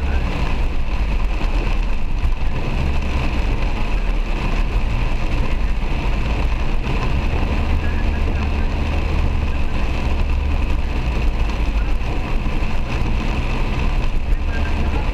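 Heavy rain on a moving car, heard from inside the cabin over a steady low rumble of the engine and tyres on the wet road.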